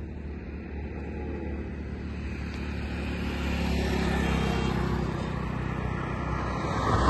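A motorcycle riding past on the road, its engine growing louder to a peak about four seconds in and then fading, over a steady low rumble.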